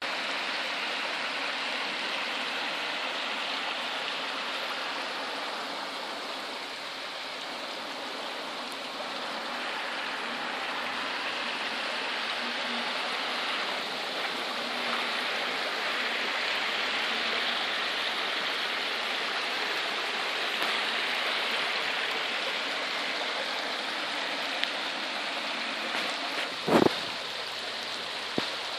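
Muddy floodwater rushing past in a fast torrent, a steady noise of churning water. A single short knock sounds near the end.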